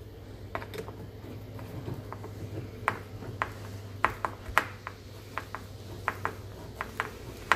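Sharp, irregular metal clicks and taps as a screw is driven into the dishwasher's fiberboard with a screwdriver, over a low steady hum.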